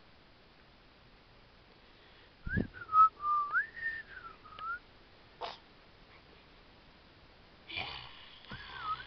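A person whistling a short wavering tune about two and a half seconds in, starting with a dull thud and broken by a sharp click; a few soft knocks follow, and a brief whistled phrase starts again near the end.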